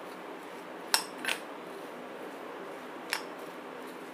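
Metal spoon stirring a crumbled paneer and vegetable stuffing in a glass bowl, knocking against the glass in three light clinks, two close together about a second in and one about three seconds in.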